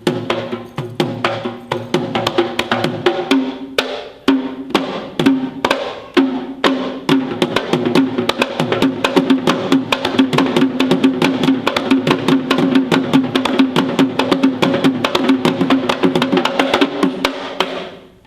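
Traditional Sri Lankan drums played fast: dense, rapid strokes over a steady ringing drum tone, with brief breaks about four and six seconds in, then a long unbroken run that stops suddenly near the end.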